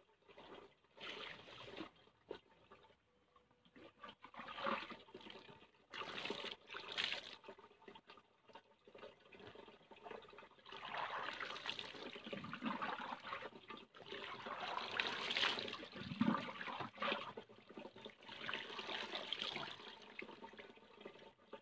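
Water poured and splashing over a person bathing, in uneven gushes and trickles that grow louder in the second half.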